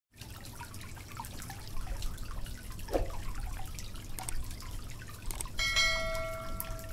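Oil sizzling and crackling in a pan as egg-dipped bread fries. Near the end a bell-like chime rings for about a second over the sizzle.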